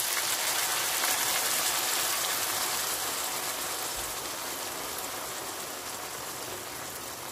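A steady stream of boiling water poured into a hot pan of frying chicken hearts, gizzards and onion, splashing and sizzling as it hits the pan, easing off slightly toward the end.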